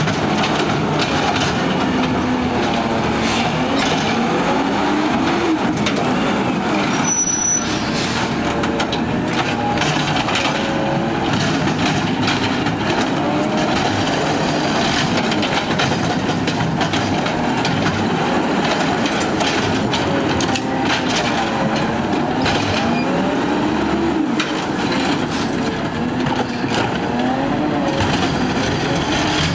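Natural-gas engine of a McNeilus ZR automated side-loader garbage truck revved hard and held high while the hydraulic arm grabs, lifts and dumps carts. The engine pitch rises and falls again and again, with scattered knocks of the arm and carts.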